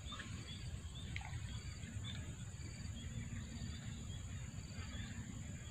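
Insects droning steadily at a high pitch, with short chirps repeating about twice a second over a low outdoor rumble.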